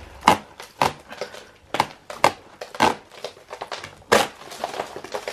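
Old wall plaster with embedded mesh being picked and broken off by hand: irregular cracks and crumbling, the sharpest snap about four seconds in.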